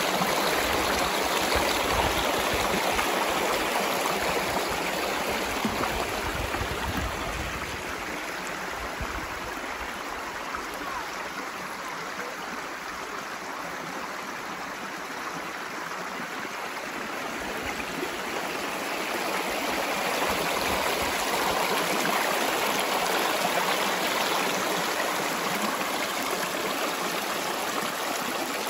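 Shallow river rushing and rippling over rocks in a small riffle: a steady wash of running water that eases somewhat through the middle and builds again toward the end.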